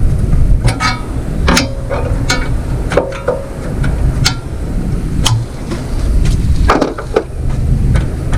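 Hand tools clinking and clanking on metal mower parts during disassembly: about eight sharp, separate knocks, a few ringing briefly, over a steady low rumble.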